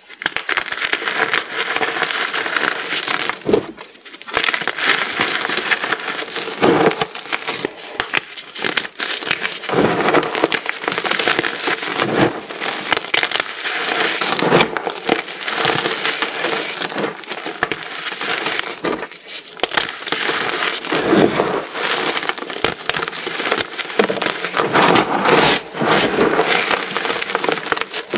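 A heap of small pyramids of dyed, reformed gym chalk being crushed together: dense, continuous crunching and crackling made of many small cracks, with a few brief lulls.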